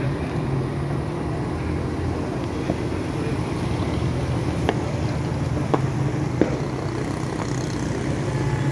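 Fireworks going off at a distance as a few separate sharp pops, about four spread over several seconds, over a steady low rumble.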